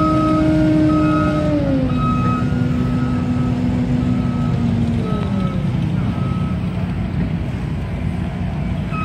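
Battery-electric Mean Green zero-turn mower driving itself: a steady motor whine that steps down in pitch about a second and a half in and slides lower around five seconds, with a short high beep repeating about once a second over a low rumble.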